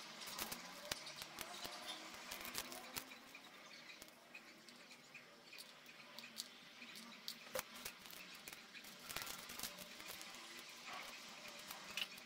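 Faint rustling and crackling of dry corn husk strips being handled and pressed into place, with scattered small clicks and taps.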